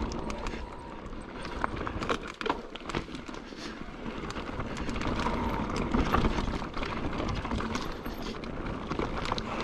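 Mountain bike riding fast over a rocky, rooty trail: tyres rumbling over stones and roots, with frequent sharp rattles and knocks from the bike over a steady rush of noise.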